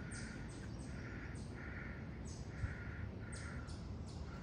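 A crow cawing in a long, even series, about two harsh caws a second, with faint high, falling chirps above and a steady low rush of background noise.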